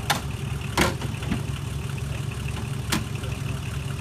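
An off-road vehicle's engine idling steadily, with three sharp clicks: one right at the start, one just under a second in, and one about three seconds in.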